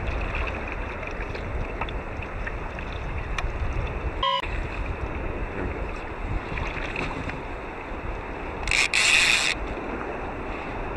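Wind buffeting the microphone, with water lapping against the kayak. About nine seconds in, a short, loud hiss cuts through for under a second.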